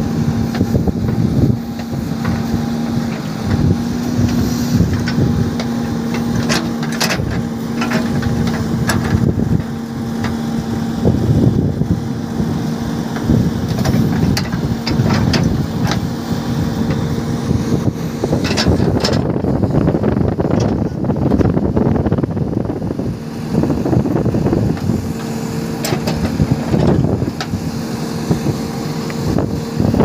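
JCB 3DX backhoe loader's diesel engine running steadily under working load as the backhoe digs and loads broken rock, with scattered sharp knocks and clatter of stones against the bucket.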